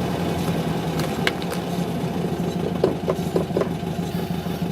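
VW Beetle 1600's air-cooled flat-four engine running steadily, heard from inside the cabin, with a few faint short sounds about three seconds in.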